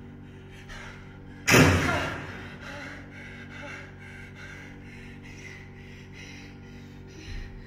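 A sudden loud burst of noise about a second and a half in, fading over about a second, over a steady low hum; after it comes a run of faint, breathy sounds.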